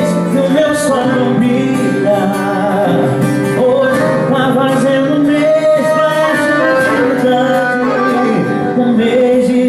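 Male singer singing a country-style song to his own strummed acoustic guitar, with accordion accompaniment.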